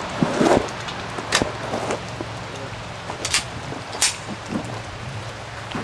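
A few sharp knocks and clicks over a steady low hum, the loudest a little over a second in and about four seconds in.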